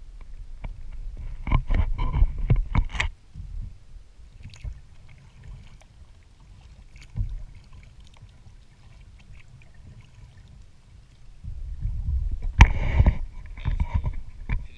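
Low wind rumble on a kayak-mounted action camera's microphone, with a cluster of knocks and clatter in the first three seconds. Near the end the rumble grows louder and there is a sharp knock and handling clatter as the camera is turned around on its mount.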